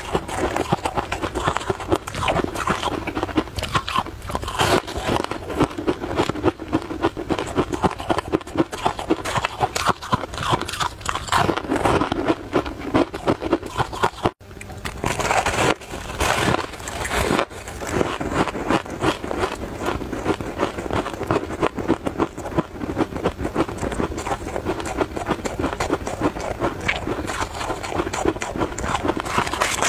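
Close-miked crunching and chewing of crisp, flaky frozen tartary-buckwheat ice, a dense run of crackly bites, with scraping as pieces are broken off in the bowl; a short break about halfway through.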